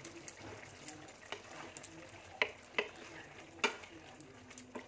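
Wooden spatula stirring a thick cauliflower curry in a pan on the stove, with four sharp taps of the spatula against the pan in the second half.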